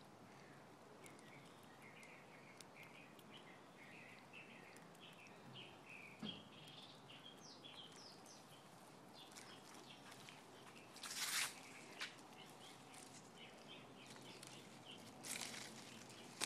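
Faint chirping of small birds, many short calls scattered throughout, with two brief bursts of rustling about eleven and fifteen seconds in.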